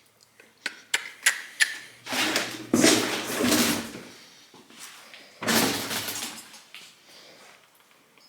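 Metal parts being handled: several sharp clicks and knocks, then two longer stretches of clattering and scraping, the second starting about five and a half seconds in.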